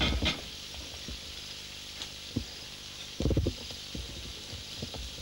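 Bacon and sausages sizzling steadily in a frying pan over a charcoal stove, with a few low thuds, the loudest a little past the middle.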